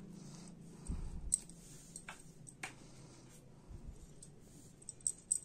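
Faint handling of a plastic spoon spreading thick green chutney over fish on a banana leaf: a few sharp light clicks and a dull low thump about a second in, with another thump near four seconds.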